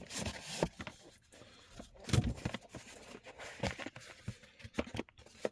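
Repair kit's box and packaging being opened and its contents handled: irregular rustles, scrapes and small knocks, the loudest about two seconds in.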